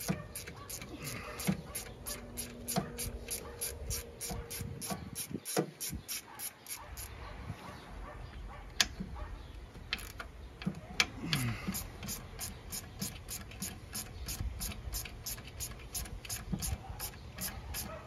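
Ratchet and socket working on small bolts in a car's engine bay, with scattered sharp metallic clicks and taps. A faint high ticking repeats evenly, about three times a second, underneath.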